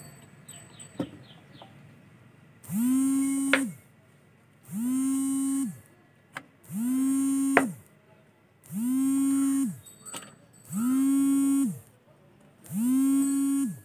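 A horn-like alarm tone sounding six times, each about a second long and about two seconds apart, each sliding up in pitch as it starts and dropping as it stops.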